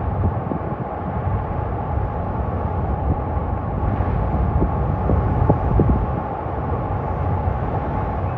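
Gale-force wind buffeting the microphone over the steady rush of heavy storm surf breaking, with irregular low thumps.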